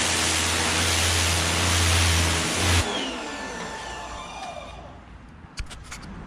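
Electric pressure washer running with the spray on: a loud hiss of water over a steady motor hum. About three seconds in, the spray stops abruptly and the motor winds down with a falling whine. A few light clicks come near the end.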